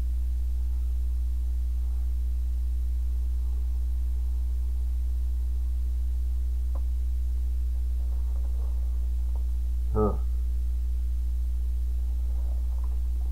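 Steady low electrical mains hum with a fainter higher steady tone. A brief voice sound comes about ten seconds in.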